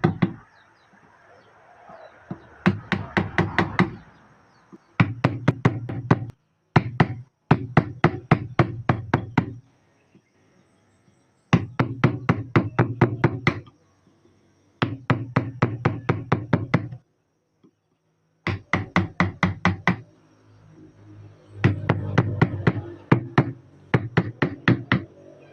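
Wood carving chisel tapped with a mallet into a wooden fish carving, quick sharp knocks about six a second, in runs of one to two seconds with short pauses between.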